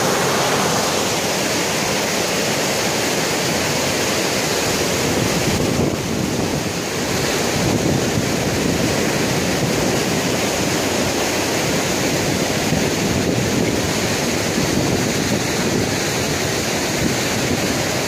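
White-water river rapids rushing over and between boulders: a steady, loud, even rush of water.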